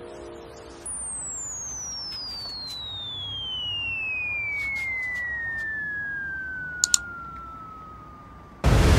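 A long whistle falling steadily in pitch for about eight seconds, then a sudden loud explosion near the end: the cartoon falling-bomb sound effect.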